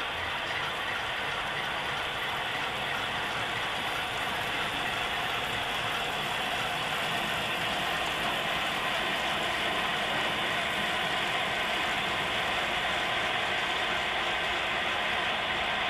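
Steady, rapid mechanical clatter with no let-up, growing slightly louder.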